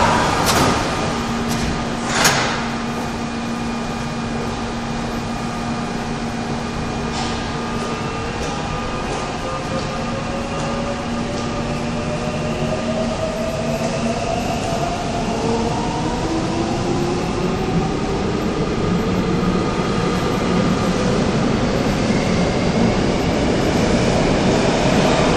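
Korail Line 3 3000-series electric train departing: two sharp knocks of doors closing in the first few seconds, then the traction motors' whine climbing in pitch as the train accelerates away, with wheel and rail noise slowly growing louder.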